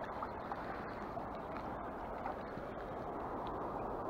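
Steady rush of flowing river water, with a few faint small splashes as a hooked nase thrashes at the surface and is lifted out by hand.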